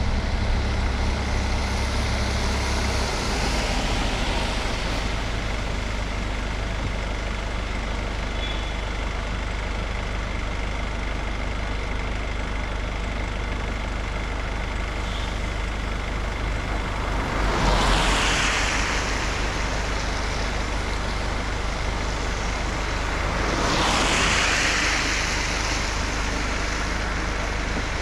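Steady rain with vehicles passing on a wet road: the hiss of tyres swells and fades twice, about 18 and 24 seconds in. A low rumble near the start drops away after about three seconds.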